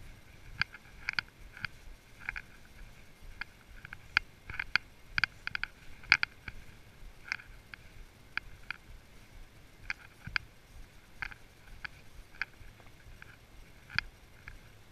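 A horse walking along a leaf-strewn trail, with irregular short, sharp clicks from its bit and tack, one to three a second, over a faint low rustle.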